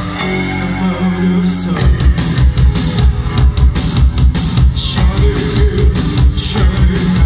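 Post-punk band playing live through a club PA: electric guitars, bass and keyboards with a woman singing. The drums drop out for about the first two seconds, leaving held bass notes, then a fast steady kick-drum beat comes back in.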